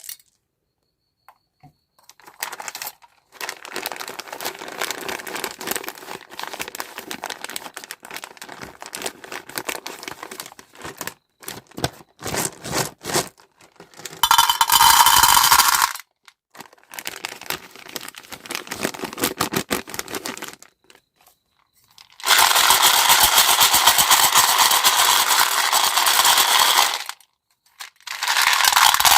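Close-up crinkling of plastic packaging and small hard pieces clattering, in bursts broken by short quiet gaps. Two longer, louder stretches of dense crackling come about halfway through and again near the end.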